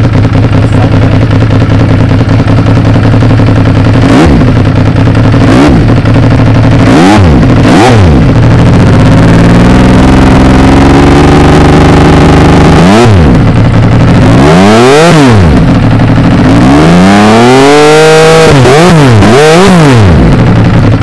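Benelli Tornado Naked Tre 1130's three-cylinder engine idling and being revved through its under-seat exhaust: several short, sharp throttle blips, a slower climb and fall in the middle, then another run of quick blips near the end.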